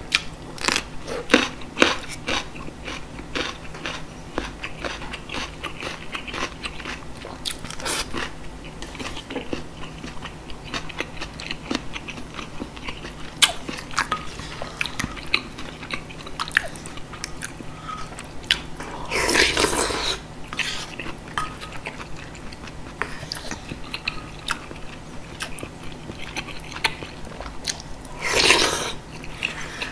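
Close-miked biting and chewing of a soy-pickled green chili pepper: many short wet crunches and mouth clicks. Two longer slurps of spicy beef soup with rice from a spoon, one about two-thirds through and one near the end.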